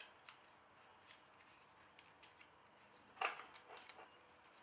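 Faint paper and card handling: light rustles and small clicks as die-cut cardstock pieces are picked up and moved, with one louder short rustle about three seconds in.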